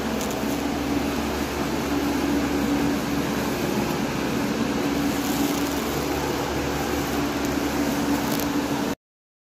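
Steady machine hum with a constant low tone, cutting off abruptly near the end.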